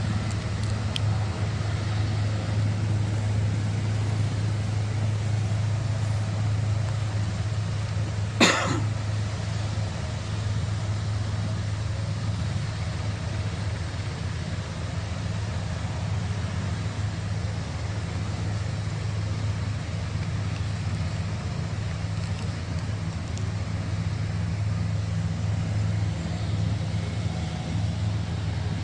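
Helicopter running, a steady low rumble of engine and rotor, with one sharp click about eight seconds in.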